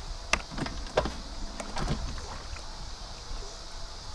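A handful of sharp clicks and knocks from a fishing rod and reel being handled during a cast and the start of the retrieve, bunched in the first two seconds, then only faint background.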